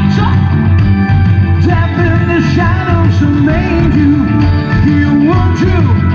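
A rock band playing live through a large outdoor PA: drums, bass, keyboards and electric guitar, loud and steady, with a melody line that slides between notes.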